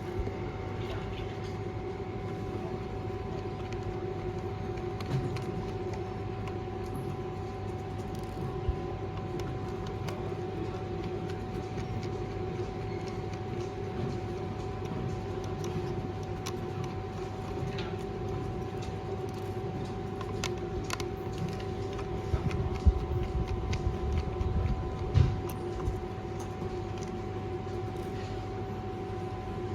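Steady machine hum with a fixed pitch, joined by a few knocks and thumps roughly two-thirds of the way in.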